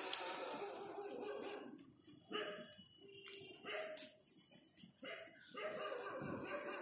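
Young puppies whining and yipping in short, pitched cries, with a longer whine at the start and another near the end.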